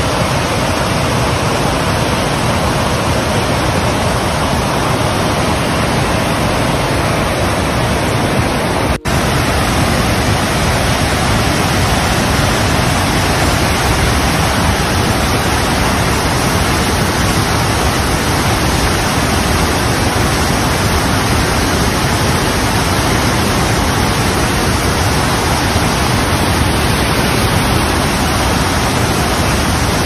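Loud, steady rush of muddy floodwater pouring through an opened dam gate and down the spillway, with a momentary break about nine seconds in.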